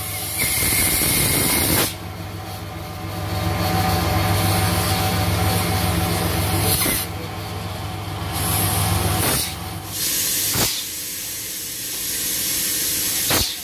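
Hissing from a car's engine bay where white vapour is rising, in several separate bursts over a steady low mechanical hum.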